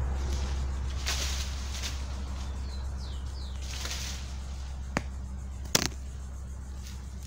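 Leaves and branches of an avocado tree rustling as a long picking pole is worked among them, with a couple of sharp knocks, the louder one about six seconds in. A bird chirps a few times about three seconds in.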